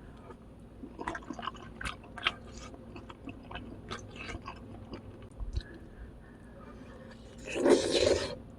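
Close-up crunchy chewing and biting of food, with many short crisp crunches. Near the end comes a louder noisy burst lasting under a second.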